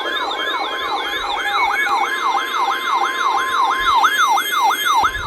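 Electronic siren-style emergency alert tone: a wail that sweeps up and down about three to four times a second over a steady tone. It signals an incoming weather warning and stops about five seconds in.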